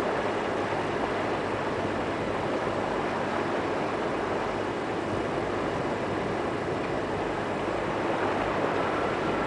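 A motor cruiser under way: its engine runs steadily with a low drone, beneath an even rush of water along the hull.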